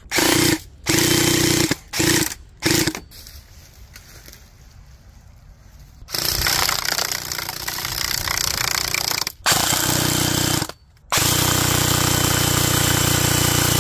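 Airsoft guns firing on full auto: four short bursts in the first three seconds, then, after a quieter pause, three long bursts of one to three seconds each.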